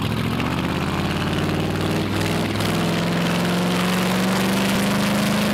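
Motorboat engine running at planing speed, a steady drone that shifts slightly in pitch about two seconds in, over the rush of water and wind along the hull.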